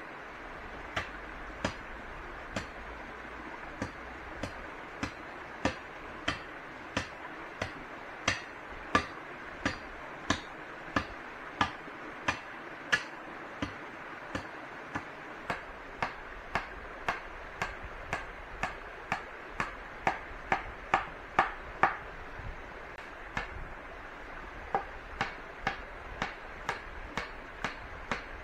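A blade chopping wood: a steady run of sharp strikes, about two a second, with a short pause near the end before the strikes resume.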